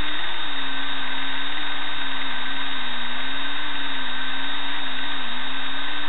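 Electric drill spinning a bristle brush against a brushless outrunner motor, scrubbing green copper oxidation off it: a steady motor hum with a scrubbing hiss, its pitch wavering slightly as the brush is pressed on. The drill stops at the very end.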